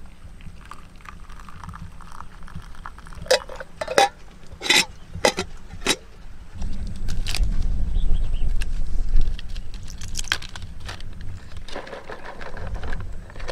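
Water poured into a stainless steel camping mug, then a few sharp metallic clinks of cookware. A low rumble follows midway, and near the end dry spaghetti rustles as it is handled.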